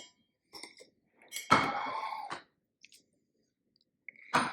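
A few short clinks and knocks of dishes and cutlery, the loudest about one and a half seconds in with a brief ring.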